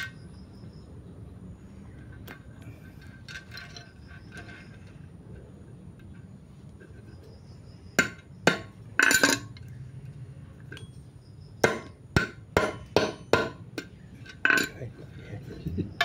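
Claw hammer striking a rusty roller chain that rests on a steel disc: sharp metal-on-metal blows, about four around eight seconds in and a quicker run of about seven more from about eleven and a half seconds on. Before the blows, faint clinks of the chain links being handled.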